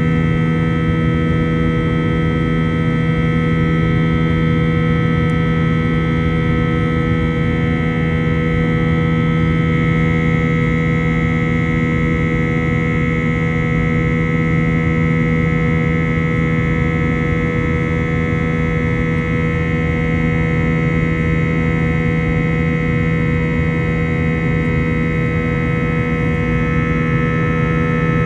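Cabin noise of an Airbus A321-231 climbing after takeoff: the IAE V2500 turbofans' steady drone and the rush of air past the fuselage, with several tones held unchanged throughout.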